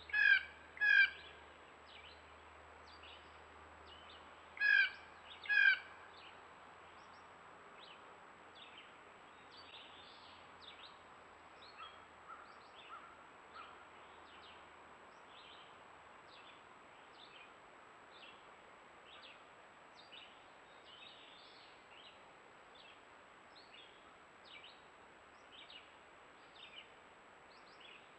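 Blue jay calling: two loud, harsh calls in quick succession, then two more about four seconds later. Faint, scattered chirps of other birds continue throughout.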